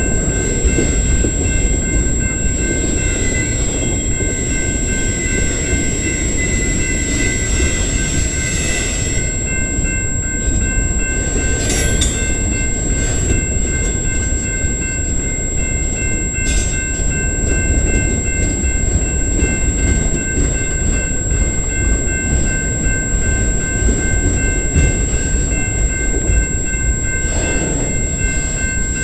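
Autorack freight cars of a long freight train rolling past close by: a steady loud rumble and clatter of steel wheels on the rails, with a few thin steady high tones above it and a couple of short sharp sounds about midway.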